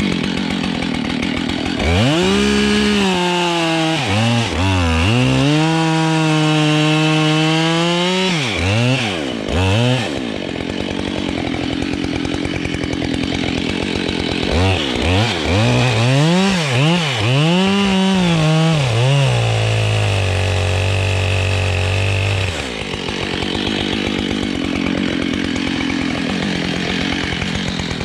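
Husqvarna 572 XPG two-stroke chainsaw felling beech: the engine revs up and down again and again, with stretches of steady cutting in between and a spell at a steadier, lower speed about twenty seconds in. The saw is fairly new and not yet run in, so it sounds a little different.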